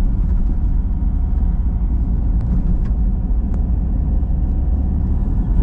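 Steady low rumble of a car driving along a rough road, heard from inside the cabin.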